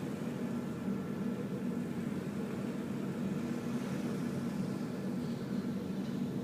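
Steady low drone aboard a ferry underway, from the ship's engines and machinery, unchanging throughout, with a few faint steady whines above it.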